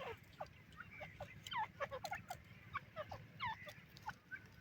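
Irani teetar (francolin) calling: a busy series of short, quickly falling chirps, several overlapping, mixed with scattered sharp clicks.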